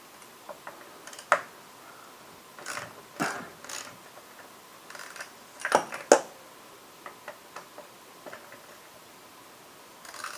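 Ratchet with a 6 mm hex socket loosening the fork's axle pinch bolts: scattered clicks and metallic knocks with pauses between them. The loudest is a pair of knocks about six seconds in, followed by a few light ticks.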